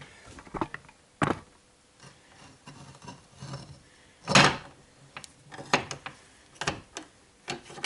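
Metal clunks and knocks as a heavy steel shaft is handled and clamped in a bench vise: about seven separate knocks, the loudest and longest about four and a half seconds in, with quieter handling and scraping between.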